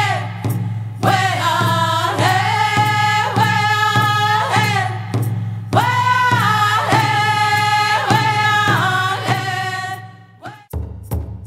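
Background music: a singing voice holding long notes over a steady drum beat. Near the end it fades, then a new section starts with a deep bass and sharp drum hits.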